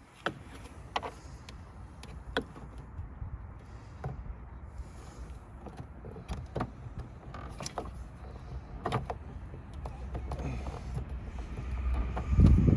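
Scattered light clicks and knocks of hands working plastic headlight parts and wiring connectors, with a louder thump near the end.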